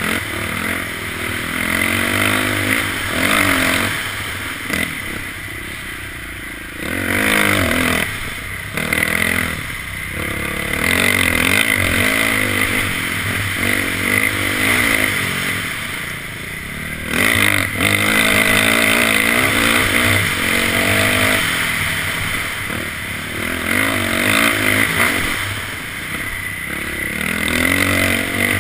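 Dirt bike engine revving up and down again and again as it is ridden over a bumpy trail, heard close up from the rider's helmet.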